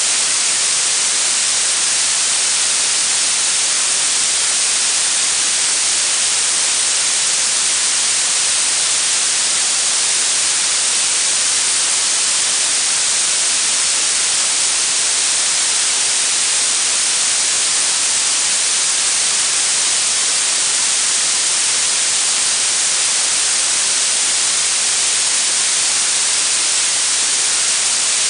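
Synthetic blue noise: a steady, unchanging hiss weighted toward the high end, with the treble strongest and the bass thin.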